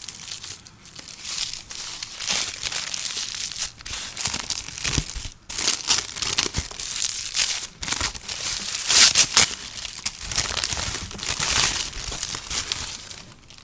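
Packaging from a makeup advent calendar being crinkled and torn as a door is opened and the item inside unwrapped, in a dense run of irregular crackles with sharper tears.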